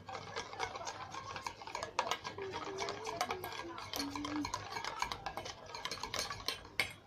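A spoon stirring a slime mixture of lotion and dish soap in a bowl, with rapid clicking and scraping against the bowl that stops near the end.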